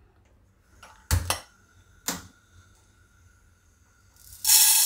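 Two short knocks of cookware, then dry split pigeon peas (toor dal) pouring from a plate into an empty nonstick kadai: a loud, even rush of grains hitting the pan that starts near the end.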